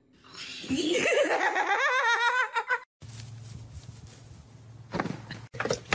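A person laughing hard in high, wavering peals that climb in pitch, cut off abruptly about three seconds in. After that comes a low steady hum with a few faint knocks.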